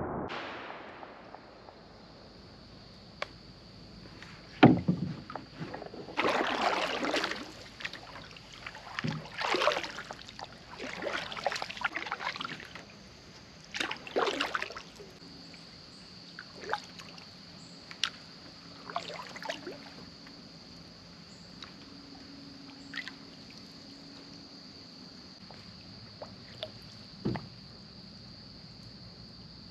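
Paddling a small boat: irregular paddle strokes with splashes and knocks against the hull, over a steady high-pitched hum.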